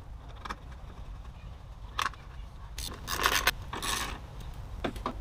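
Car parts being handled by hand: a few sharp clicks, and a burst of clattering and scraping about three seconds in.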